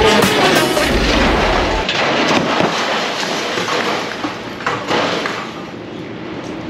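Heavy-bass music cuts off about two seconds in. Then come several sharp knocks and clunks as a steel rotisserie carrying a car body shell is pushed up a metal trailer ramp.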